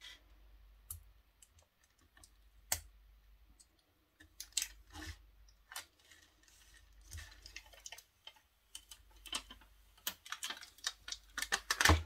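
Light clicks and rustles of fingers with long nails rubbing a vinyl decal down onto a resin coaster and tapping it on the table: scattered, irregular clicks, with a busier run of them near the end.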